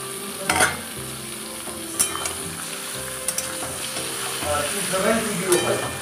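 Raw mutton pieces sizzling in hot oil with fried onions in a kadai while a spatula stirs them. A few sharp clinks of the spatula against the pan cut through the steady sizzle.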